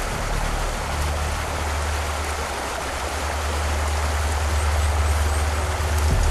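Rushing river water, a steady even hiss, over a low steady rumble.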